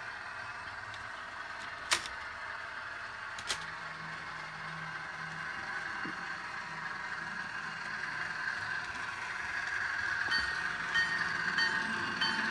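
Bachmann HO scale ALCO S-4 model locomotive running under DCC, its sound decoder playing a diesel switcher engine along with the hum of the drive and wheels on the track, growing louder as it approaches. Two sharp clicks come a few seconds in, and a light rhythmic clicking of the wheels over the rail joints starts near the end.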